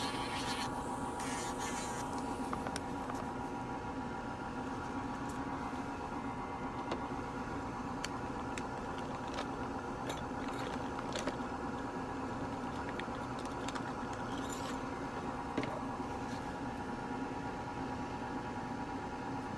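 Electric nail drill unit with dust-extraction suction running with a steady hum and whine, with a few light clicks over it.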